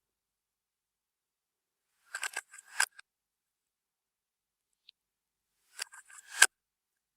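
Clear slime being squeezed and pressed by hand, giving two short runs of crackling, popping clicks, about two seconds in and again near the end, with a single faint tick between them.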